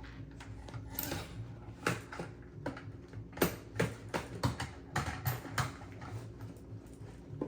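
Lego pieces clicking and tapping as they are handled and pressed together: a dozen or so irregular small plastic clicks.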